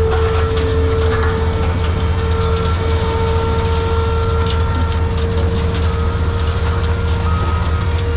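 A heavy vehicle engine running steadily: a low rumble with a steady whine held over it, and scattered light knocks and rattles throughout.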